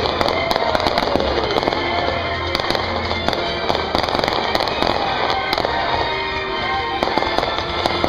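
Fireworks going off in a rapid, dense string of crackles and pops as shells and fountains of crackling stars burst, over music playing underneath.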